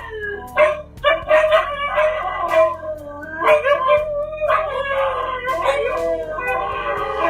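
Husky howling and yowling in its talking way, its calls wavering and sliding up and down in pitch: a short call, then two long drawn-out stretches.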